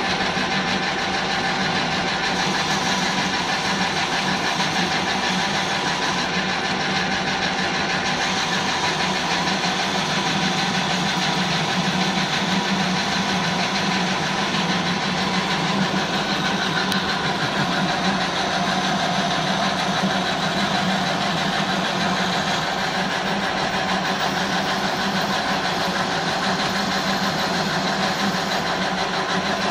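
Metal lathe running at a steady speed, a steady low hum with a few higher whining tones over it, while a radius cutter turns a rounded spool profile in a steel bar.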